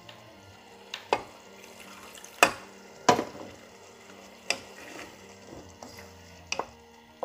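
Wooden spatula stirring a thick mutton curry in a pan, with scattered knocks of the spatula against the pan; the loudest come about two and a half and three seconds in.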